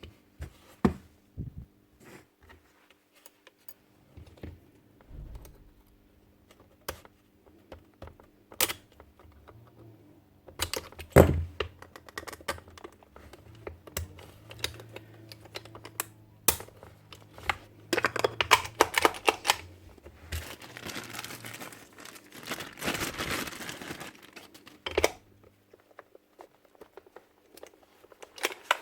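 Metal parts and hand tools being handled while a Makita HR3540C rotary hammer is reassembled: scattered clicks and knocks, with one sharp knock about a third of the way in, a quick run of rattling ticks past the middle, then a few seconds of rustling.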